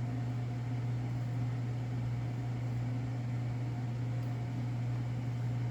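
A steady low hum with no other sound standing out.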